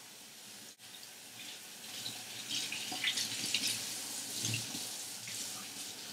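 Kitchen faucet running into a stainless steel sink, the stream splashing through hair as it is rinsed under the water. It gets louder and more splashy about two seconds in.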